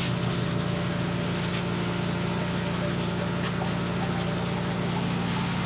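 Pressure washer running steadily, its motor and pump humming under the hiss of the water jet as it blasts caked mud off a car's molded floor carpet.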